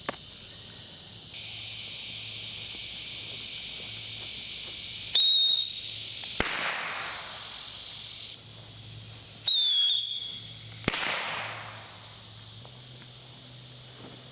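Two whistle chaser fireworks go off one after the other. Each gives a brief shrill whistle that falls in pitch and then a sharp bang about a second later, over a steady high hiss.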